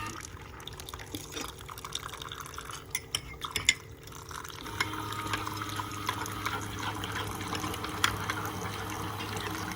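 Coffee maker dispensing hot water into a mug of hot chocolate powder: liquid filling the mug over a steady machine hum, with a few light clicks.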